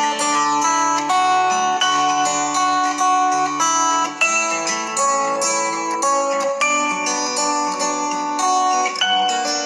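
Calm instrumental background music of plucked strings, with one picked note following another at a steady pace.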